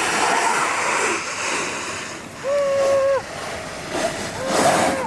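Snowboard sliding and carving over snow with wind rushing past, a steady hissing scrape. Two short, held, steady tones cut through it, one about halfway and one near the end.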